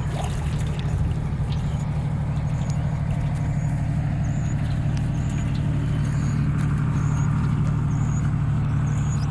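A motor engine running steadily, a low even hum that doesn't change speed. A short high chirp repeats over it about every three quarters of a second.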